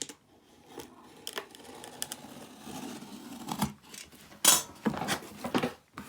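A cardboard product box being opened by hand: irregular scraping, tearing and rustling of cardboard and packing, with sharp clicks and snaps that are loudest about four and a half seconds in.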